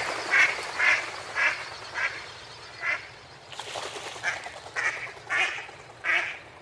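Ducks quacking in quick runs, about two quacks a second, dying away after a couple of seconds, with a second run of quacks starting about four seconds in.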